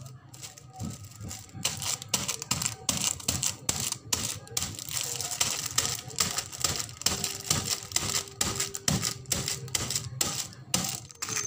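Clear plastic bag crinkling and a small drinking glass pressing and knocking on it against a tabletop as leftover cooked rice inside is flattened into a thin layer for puffed rice. A rapid, irregular clatter of clicks.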